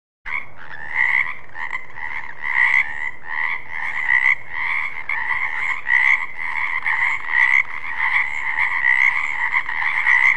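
Frog croaking steadily in a fast run of pulsed croaks, starting a moment in.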